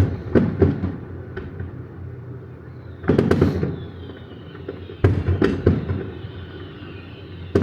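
Fireworks display: aerial shells bursting in a series of booms with echoing tails, the heaviest volleys about three seconds in and again from about five seconds in, with a crackling fizz after the burst at three seconds.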